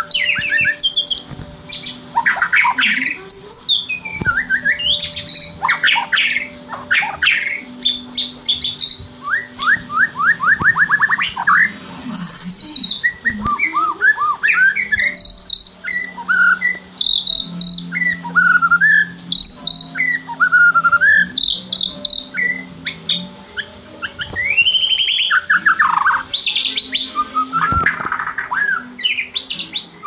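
White-rumped shama singing a long, varied song of loud whistles, pitch glides and fast runs of repeated notes, in quick short phrases one after another.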